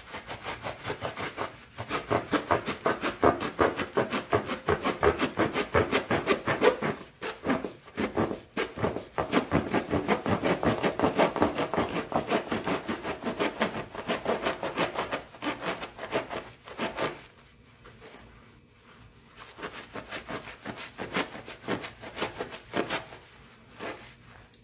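A knife sawing back and forth through a roll of paper towels, rapid rasping strokes several times a second. The sawing stops for a couple of seconds about two-thirds of the way in, then resumes.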